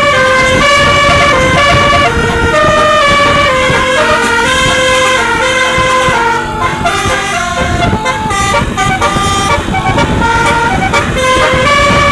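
Basuri 'telolet' musical bus horn playing a tune: a run of short held notes that step up and down in pitch, with a low rumble underneath.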